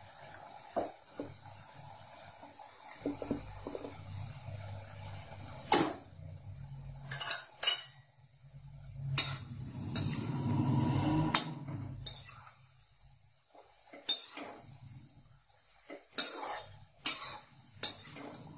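Kaju namak pare (cashew-shaped maida dough pieces) deep-frying in oil in a metal kadhai, the oil sizzling steadily, while a perforated metal ladle stirs them and clinks sharply against the pan about ten times.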